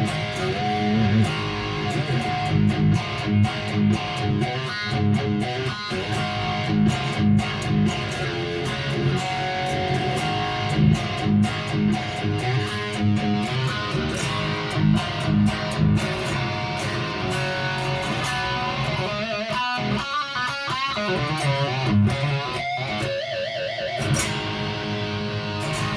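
10S GF Old Blackie Les Paul-style electric guitar played through a Kemper's Soldano amp profile with reverb only, heard over JBL speakers: accented rhythm riffs and strums, then single-note lead lines with wavering vibrato toward the end.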